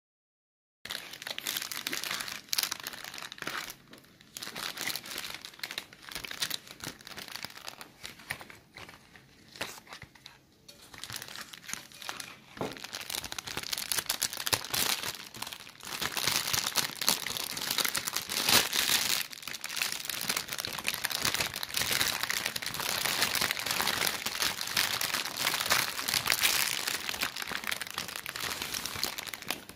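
Gold metallic foil gift wrap crinkling and rustling as hands untie its gathered top and pull it open. It starts about a second in, comes in scattered handlings for a while, then becomes continuous and louder in the second half.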